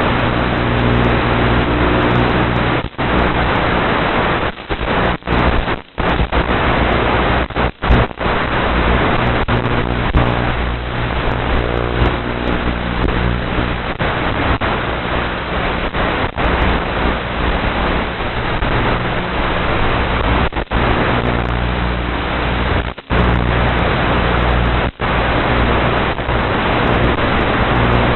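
FPV quadcopter motors and propellers roaring loudly on the onboard camera's microphone, their pitch rising and falling with throttle, mixed with wind rush; the sound cuts out sharply for split seconds several times.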